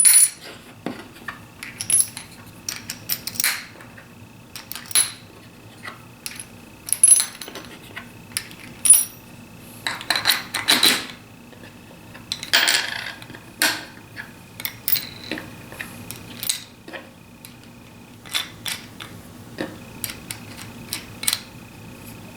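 Steel washers, fender washers and bolts of a miter clamp corner clinking and scraping as it is put back together by hand: scattered sharp metal clicks, with two longer scraping rasps about halfway through.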